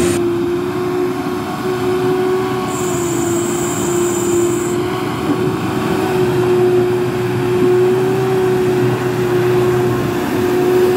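Mitsubishi Triton pickup's engine held at high, nearly steady revs as the truck drives through deep mud.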